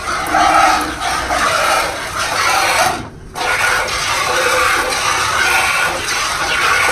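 A cow being milked by hand: streams of milk squirting into a plastic bucket in uneven pulses. There is a brief break about three seconds in.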